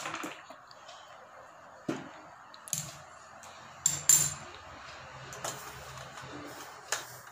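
Stainless-steel kitchen utensils clinking a few times, the loudest about four seconds in, as steel tongs and a spoon knock against the steel spice box, over the faint steady hiss of a gas stove burner heating ghee in a small pan.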